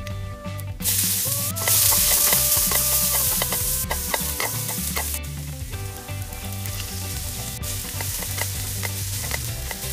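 Hot oil in a kadai sizzling; the sizzle jumps suddenly loud about a second in as shredded vegetables go into the oil, then carries on, softer, while they are stirred and fried. Soft background music plays underneath.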